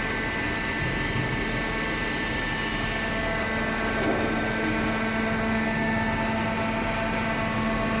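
Automatic horizontal hydraulic carton baler running: a steady machine hum with several steady whining tones from its motor and pump.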